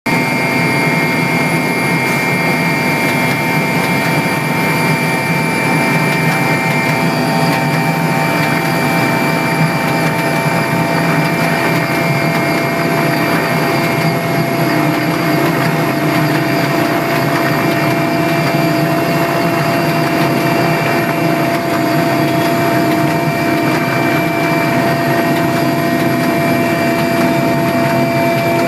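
Cabin noise of an offshore transport helicopter in flight: a loud, steady drone of the engines and rotor, with several steady whining tones over it.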